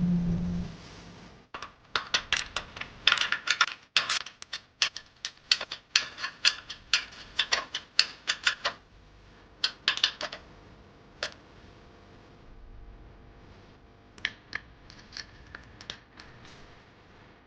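A quick, irregular run of sharp clicks and taps, like small hard parts or tools being handled, thinning out after about ten seconds with a few more near the end.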